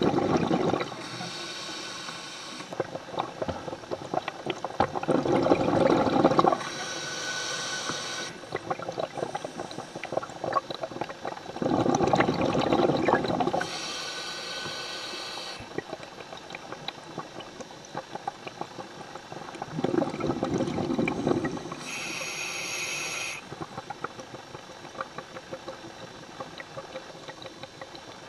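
Scuba diver breathing through a regulator underwater, four breaths about seven seconds apart. Each breath is a burble of exhaled bubbles followed by a hissing inhale with a faint whistle.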